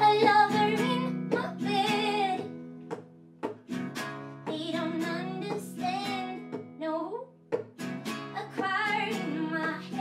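A woman singing a slow verse while strumming chords on an acoustic guitar.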